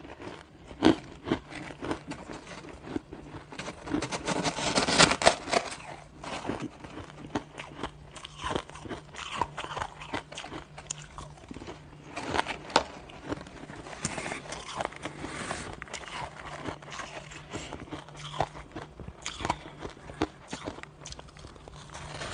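A person crunching and chewing mouthfuls of crushed and shaved ice, close to the microphone: irregular crisp crunches throughout, denser about four to six seconds in, with fingers digging into the ice.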